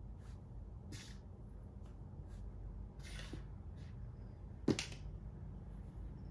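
A makruk piece being slid and set down on a Thai chess board: a few soft scuffs and taps, then one sharp click of the piece landing about three-quarters of the way through.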